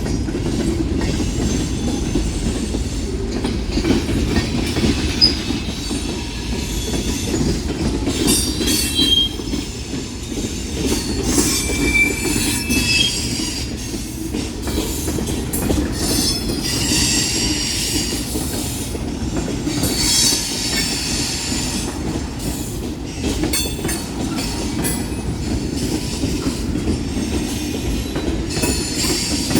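Union Pacific mixed freight train rolling past: a steady low rumble of the cars on the rails, with high-pitched wheel squeal coming and going several times.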